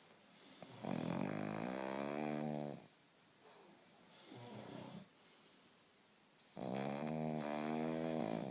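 A pug snoring very loudly in its sleep: two long pitched snores of about two seconds each, one about a second in and one near the end, with a softer breath between them.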